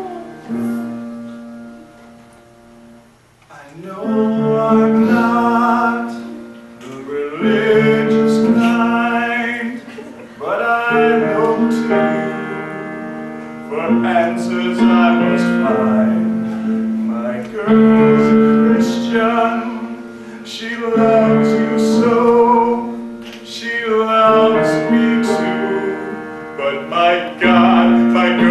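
A man singing a love song over instrumental accompaniment. A held accompaniment note sounds alone at first, and the voice comes in about four seconds in with a series of sung phrases.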